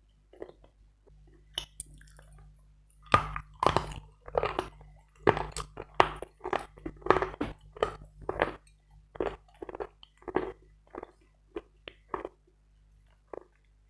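Hard Bogorodsky chalk being chewed close to the microphone: a run of sharp, dry crunches about two a second, loudest from about three seconds in, thinning out near the end.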